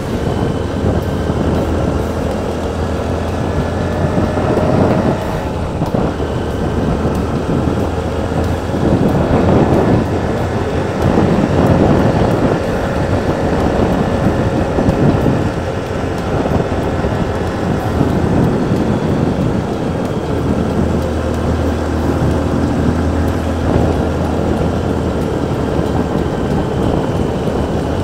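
Small motorcycle's engine running steadily while riding along, mixed with wind rushing over the microphone. The sound swells now and then.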